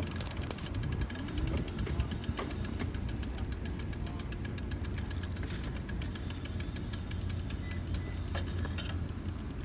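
A motor vehicle engine idling with a steady low rumble, and a faint, fast, regular ticking over it.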